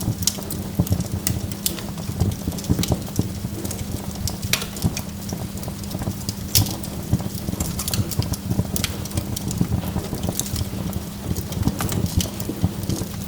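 Wood fire of burning logs crackling, with many sharp irregular pops and snaps over a steady low rumble.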